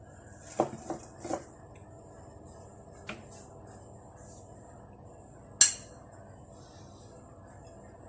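Kitchen utensils clinking against dishes: three light knocks in the first second and a half, a small tap about three seconds in, and one sharp, loud clink a little before six seconds.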